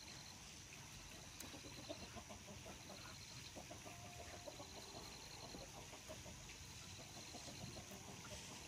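Chickens clucking faintly, in short runs of calls mostly in the first half, with a short high pulsed trill repeating about every second and a half over a steady high hiss.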